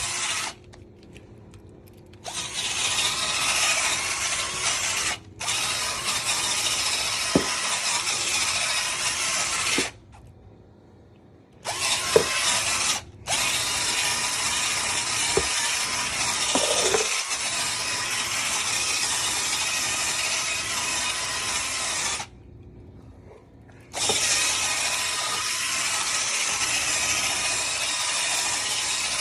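Shark vacuum cleaner running over carpet: a steady loud rushing hiss of suction with a rattly edge and a few clicks. It cuts off abruptly several times and comes straight back.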